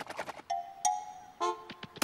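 Sparse cartoon music cue: a few short pitched notes, about half a second, just under a second and one and a half seconds in, with light ticks between them.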